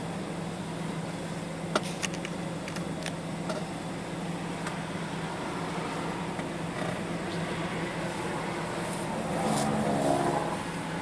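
Vehicle noise by a highway: a steady engine hum under a noise bed, with a vehicle growing louder near the end. A few light clicks sound about two to three seconds in.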